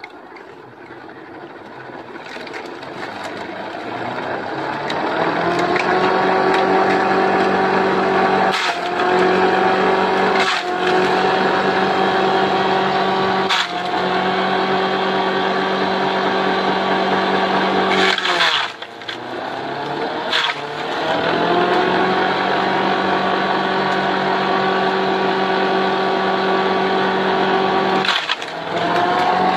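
Small electric motor from a Shimizu water pump spinning up a homemade four-blade forage chopper through a V-belt, its steady hum rising in pitch over the first few seconds and then holding. There are a few sharp cracks as greens are cut, and twice the pitch sags briefly under the load of fed greens before recovering.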